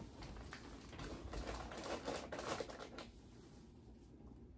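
Faint rustling of plastic snack packaging with light clicks and taps as packages are handled on a closet shelf, dying away after about three seconds.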